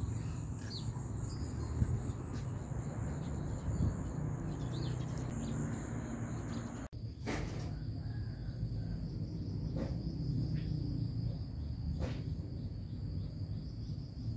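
Insects droning in a steady high-pitched whine over a low rumble. About halfway through the whine changes to a lower pitch, with a faint chirp pulsing above it about every 0.7 seconds and a few soft clicks.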